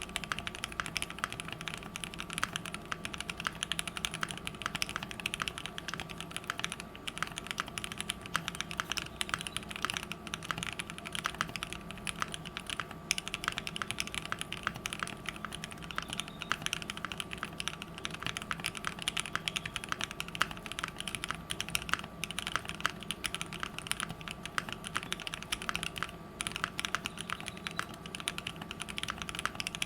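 Continuous fast typing on a custom mechanical keyboard with a brass plate, lubed linear switches (Gateron Ink housings with Kailh and Durock stems) and thick PBT keycaps: a dense, steady stream of key strikes.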